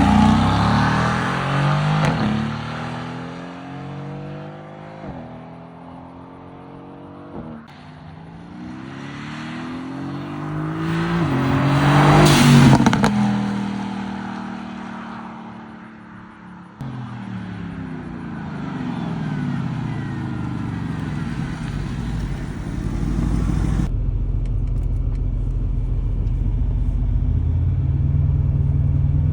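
Mercedes-AMG GT's 4.0-litre twin-turbo V8 exhaust: the engine note rises and falls in several takes. About halfway through it swells to its loudest as the car passes and then drops in pitch. Near the end it settles into a steady low rumble.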